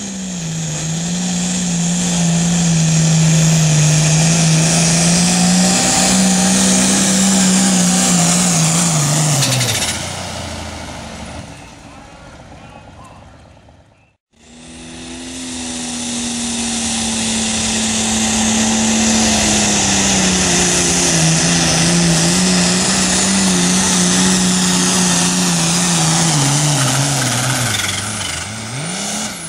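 Two runs of diesel pulling tractors at full throttle dragging a weight-transfer sled. The first engine note holds steady, then falls away and dies out about ten seconds in. After a break, an International 1066 starts its run, and its engine pitch sags slowly as the sled's load builds, dipping briefly near the end.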